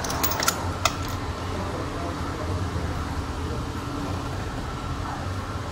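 A few light metal clinks in the first second as a ratchet wrench is handled against the engine's valve cover, then a steady low background hum.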